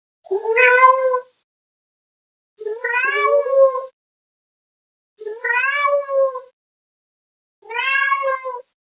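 Domestic cat meowing loudly four times, each meow about a second long and rising then falling slightly in pitch, with short pauses between them.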